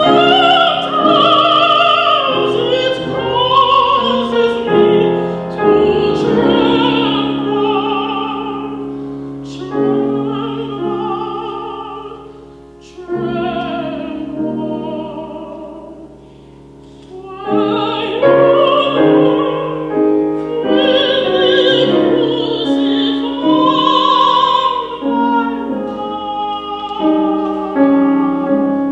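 Female classical singer performing an operatic song with vibrato on long held notes, accompanied by grand piano. It grows quieter for a few seconds about halfway through, then swells again.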